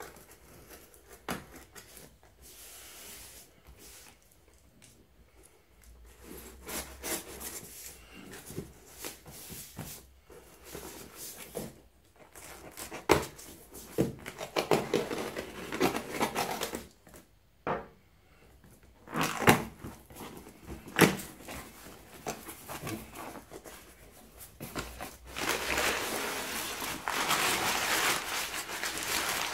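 A cardboard shipping box being opened by hand: scraping and tearing at the tape, with several sharp knocks of cardboard in the middle. Near the end comes a steady rustle of crumpled packing paper being pulled out.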